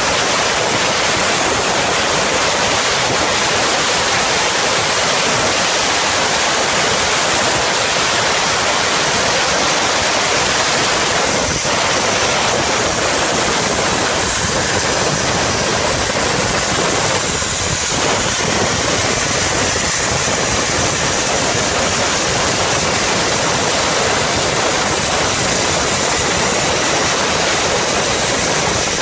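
Portable CNC plasma cutter's torch cutting through metal plate: a loud, steady hiss from the plasma arc and gas jet.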